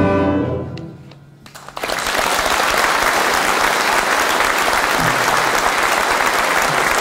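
An ensemble's final held chord fades out over about a second and a half; after a brief hush, audience applause breaks out and continues steadily.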